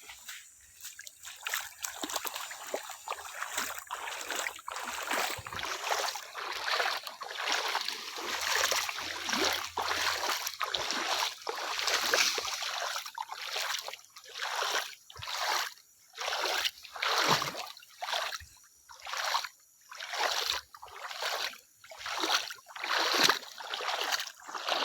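Water splashing and sloshing, at first near-continuous, then settling into regular strokes about one and a half a second in the second half.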